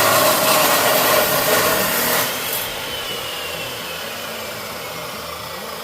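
Water running from a slow, gravity-fed fixture, a steady hiss that drops off sharply about two seconds in, after which a fainter hiss and a thin falling whine remain.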